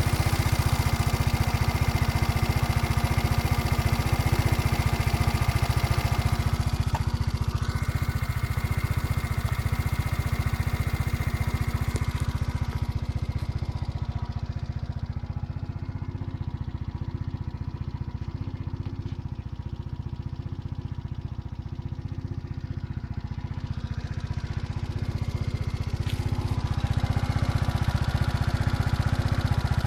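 A Yiying YY50QT 50 cc four-stroke single-cylinder scooter engine running steadily. About halfway through the sound turns quieter and duller, then grows fuller again near the end. The engine has just been rebuilt and overheats after a few kilometres, and the owner asks whether this running sound is normal.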